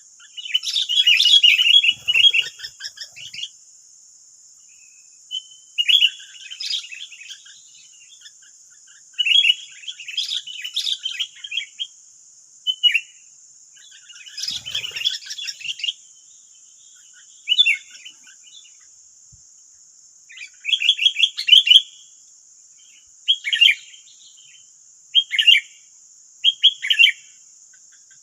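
Sooty-headed bulbuls calling back and forth, chattering bursts of chirps every one to three seconds, with a steady high-pitched hiss underneath.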